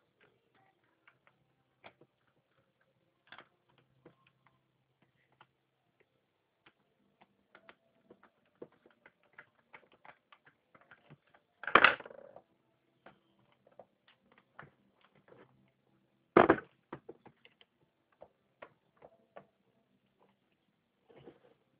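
Wall fan parts and tools being handled during reassembly of the fan motor: scattered light clicks and taps, with two much louder knocks about twelve and sixteen seconds in.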